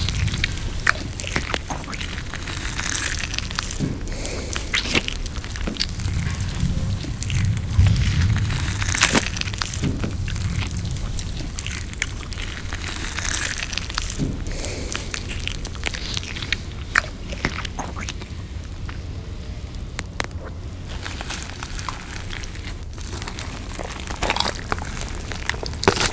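Close-miked eating sounds: chewing and biting with many short clicks and brief crunchy smacks, over a steady low rumble.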